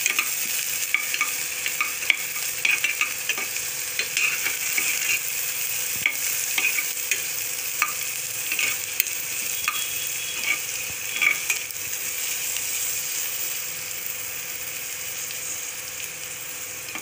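Chopped onions and curry leaves sizzling in hot oil in a small pressure cooker, stirred and scraped with a spatula, with scattered crackles from the oil. The onions are being sautéed until they turn reddish.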